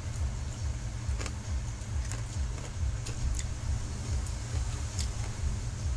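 Eating sounds: fried rice vermicelli being eaten with fork and spoon, with a few light clicks of the utensils and noodles being slurped. Under it a steady low rumble runs, the loudest sound.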